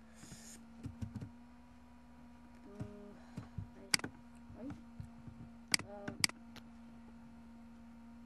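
Several sharp computer mouse clicks over a low, steady electrical hum: the loudest about four seconds in, then two about half a second apart soon after.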